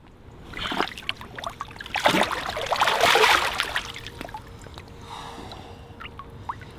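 Shallow lake water splashing as a big mirror carp is let go and swims off: several splashes, the loudest about three seconds in, then quieter drips and trickles from a wet hand.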